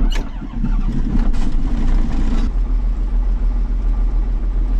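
John Deere 7510 tractor's six-cylinder diesel engine starting cold, after a night outside. It catches at once and runs louder and rougher-sounding for about two and a half seconds, then settles into a steady rumbling idle.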